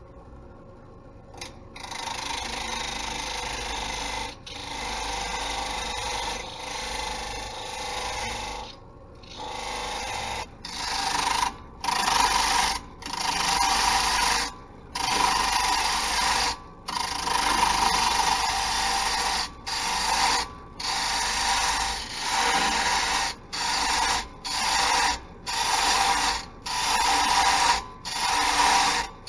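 Wood lathe with a hand-held turning tool cutting a spinning pale wood blank. The cut starts about a second and a half in and comes in repeated passes with short breaks between them as the tool is lifted, and the breaks come more often in the second half.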